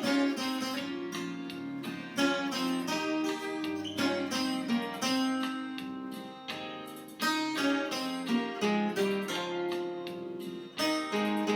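Viola caipira, the Brazilian ten-string folk guitar, playing a hymn melody in a steady run of plucked notes that ring on.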